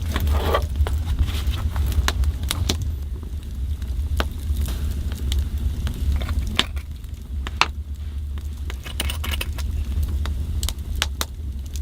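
Scattered small clicks and clinks of utensils and spice containers during food preparation, over a steady low rumble.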